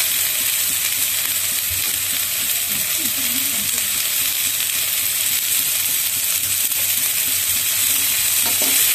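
Julienned carrot, capsicum, spring onion and peas sizzling steadily in hot oil in a pan as they are stir-fried and turned with a flat spatula.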